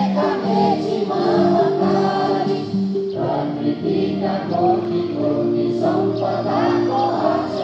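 A group of voices singing together, holding long notes.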